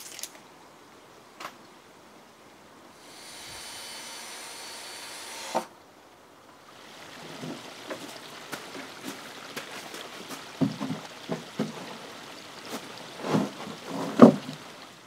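Pine beams of a timber floor frame being handled and set down: a run of wooden knocks and thuds, the two loudest near the end. A few seconds in, a steady mechanical whir lasts about two and a half seconds and ends in a sharp knock.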